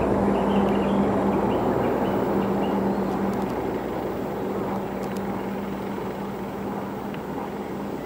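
Motor vehicle engines running on a road: a steady engine hum that weakens about three and a half seconds in, with the overall noise slowly fading.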